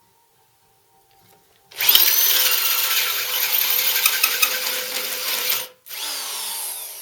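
A power drill starts about two seconds in and drives a hole cutter with a pilot drill into a cast-iron mill base casting, a loud, harsh cutting noise. It stops for a moment near the end and starts again, running a little quieter.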